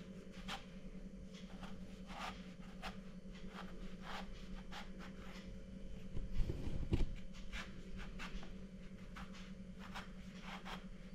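Small knife slicing lengthwise through a long purple eggplant, making short, irregular scraping cuts through the skin and flesh. A dull low bump a little past halfway is the loudest moment, over a steady low hum.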